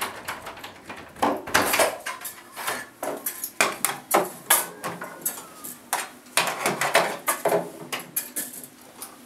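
Irregular knocks and clatters, several a second, as a door is handled and pushed open.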